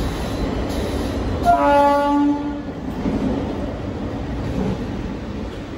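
A train horn sounds one blast of about a second, over the steady low rumble of the moving electric local train.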